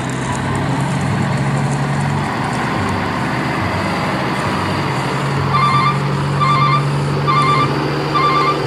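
Truck engine running steadily. From about five and a half seconds in, a reversing alarm beeps at a steady rate, four times.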